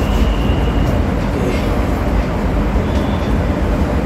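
Steady, loud rumbling background noise with no rhythm or clear pitch.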